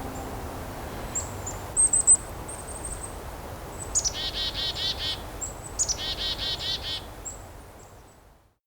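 Black-capped chickadees calling: high, thin notes, then two quick bouts of buzzy, evenly repeated 'dee-dee-dee' notes, each led by a sharp high 'chick-a' note. The recording fades out near the end.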